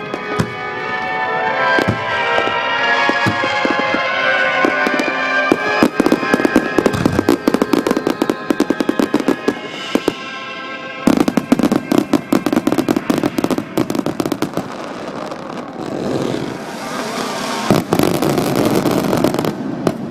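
Fireworks display: aerial shells bursting in quick succession with dense crackling, the booms distorted by a digital camera's microphone. Music plays over loudspeakers in the first few seconds.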